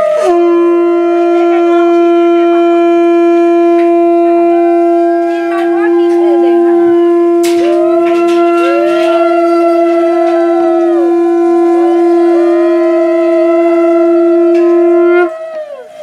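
Conch shell (shankha) blown in one long, steady note for about fifteen seconds, then stopping suddenly near the end; shorter, higher notes rise and fall in arcs over it, as in the conch-blowing and ululation of a Bengali wedding rite.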